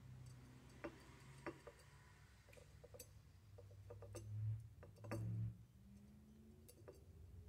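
Faint, scattered small clicks and taps as a tiny nut, screw and steel rule are handled by fingers against a cast aluminium frame. This is heard over a low hum, with two short, soft low rumbles about halfway through.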